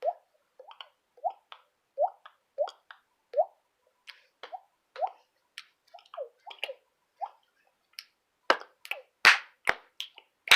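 A person making water-drop 'bloop' sounds by hand, with no instrument: a run of short, hollow, pitched plops, each a quick slide in pitch, about two a second. Near the end come several sharper, louder clicks.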